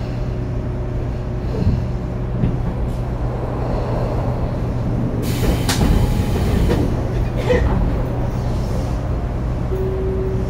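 Tobu 9000 series electric train running: a steady rumble of wheels on track with a low hum underneath. About five seconds in there is a brief, louder rushing noise.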